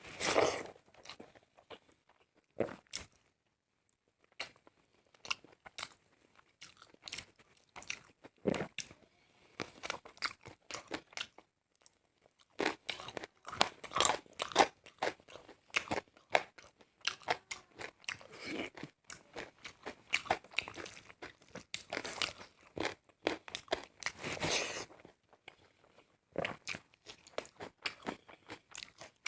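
A person eating a chicken leg piece close to the microphone: irregular crunching bites and wet chewing, mouth-eating sounds typical of mukbang ASMR. It goes quieter for a few seconds early on and then picks up again.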